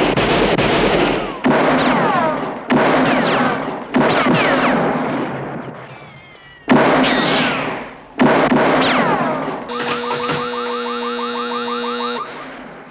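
Six revolver shots at uneven intervals, several followed by a falling whine. Near the end a shooting-range buzzer sounds steadily for about two and a half seconds, signalling a "killed by perpetrator" result on the target.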